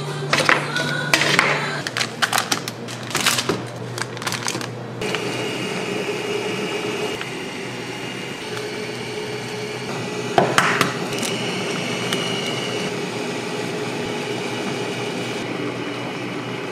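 Knocks and clatter of a ramen bowl being handled and set down on an induction cooker for the first few seconds, then a steady simmer of ramen boiling in the bowl on the cooker, with a faint steady high tone and one sharp clack about ten seconds in.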